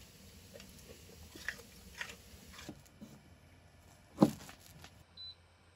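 A chocolate Labrador crunching and chewing a treat, a few small crisp bites. After that comes one sharp click as a plug is pushed into a portable power station's outlet, and a short high electronic beep near the end as the pressure cooker gets power.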